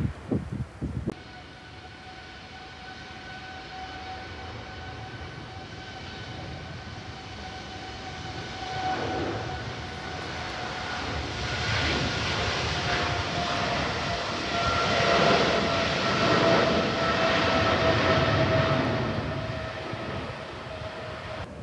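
Boeing 777-300ER's twin GE90-115B turbofans at takeoff power during the takeoff roll and lift-off. A steady high whine sits over a rumble that builds to its loudest about three-quarters of the way through. The whine then drops a little in pitch and the sound eases off as the jet climbs away.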